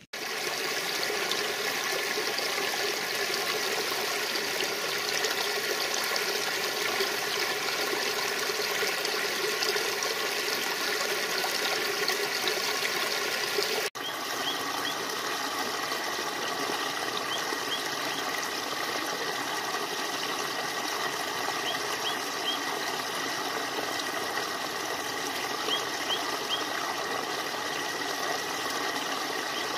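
Shallow stream trickling and burbling steadily over stones. About fourteen seconds in it cuts abruptly to a second, slightly quieter stretch of running water, with a few faint short high chirps now and then.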